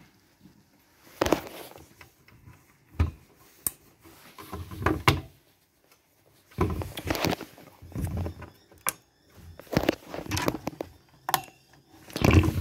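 Intel stock CPU cooler being pressed onto a motherboard by hand, its push pins clicking into place, with a series of separate clicks and knocks and handling rustle in between.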